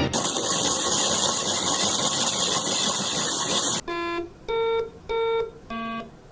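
A loud, even hiss that cuts off suddenly about four seconds in, followed by a run of short electronic beeps at changing pitches, about two a second.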